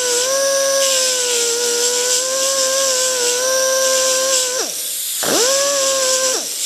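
Small handheld electric grinder whining at speed as it grinds the silver-solder bump off a band saw blade joint, its pitch sagging a little as it bears on the metal. About four and a half seconds in it is switched off and winds down, then it starts up again briefly and winds down once more near the end.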